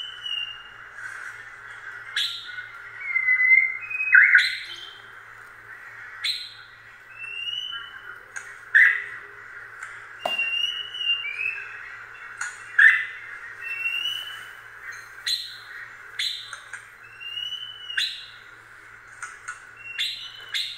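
A run of short, high chirps, some rising and some falling in pitch, coming about once a second, with sharp clicks among them over a faint steady hiss.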